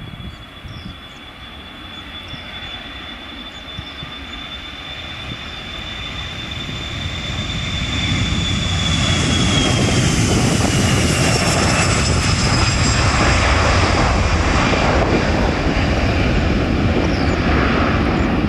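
Boeing 737-300's CFM56-3 turbofan engines at take-off power as the jet rolls down the runway and lifts off: a high whine over a roar that grows louder for the first eight seconds or so. Then the whine falls in pitch and the full, steady roar holds as the airliner climbs away.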